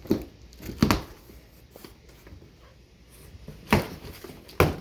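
A sword blade cutting into a cardboard shipping box: four short, sharp strikes, two close together at the start and two near the end.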